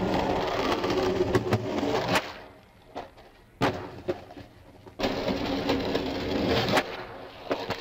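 Skateboard wheels rolling over pavement, with sharp clacks of the board popping and landing. Rolling for the first two seconds and again from about five seconds in, with a single crack in the quieter stretch between.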